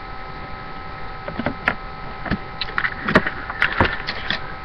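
Several scattered knocks and clicks of toiletry bottles and containers being handled and set down, over a steady electrical hum.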